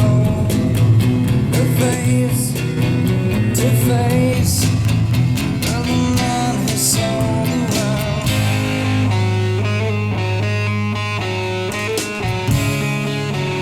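Blues-rock music with electric guitar and some singing, played back over hi-fi loudspeakers. The drum hits drop away about two-thirds of the way through, leaving longer held notes.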